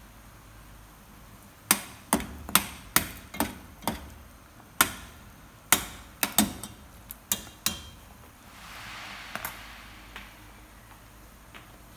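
Metal spoon knocking against the side of a cooking pot while stirring soup: about a dozen sharp, ringing clanks over some six seconds, then a soft hiss lasting about a second and a half.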